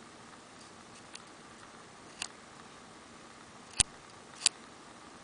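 Four sharp, irregularly spaced clicks over a faint steady hiss. Two small ones come early and two loud ones come about four and four and a half seconds in.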